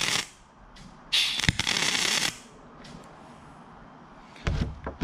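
Wire-feed MIG welder arc crackling on aluminum in short passes: one burst cuts off just after the start, and a second burst of about a second follows. A brief low bump near the end.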